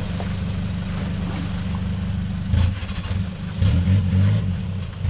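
Modified Toyota Hilux engine running at low revs while rock crawling, with throttle surges about two and a half seconds in and again near four seconds.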